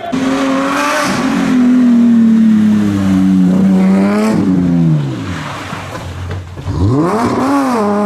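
BMW E30 rally car's engine at high revs under load, its pitch sagging slowly, then falling away about four seconds in as the throttle closes, before revving quickly back up near the end.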